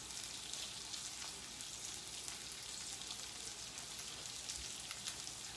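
Thin beef steaks frying in hot oil in a pan on medium-high heat: a steady, faint sizzling hiss with fine crackles.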